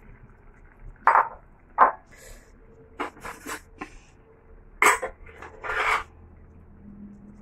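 Metal clinking and scraping against a stainless steel cooking pot as it is handled on the gas stove. A run of short, sharp knocks and scrapes, the loudest about a second in and again near the end.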